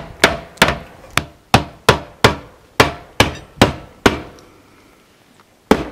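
Hammer driving roofing nails through the metal base of a chimney roof flashing: a quick, even run of about a dozen sharp strikes, about three a second, each with a short ring. This is followed by a pause of over a second and one more strike near the end.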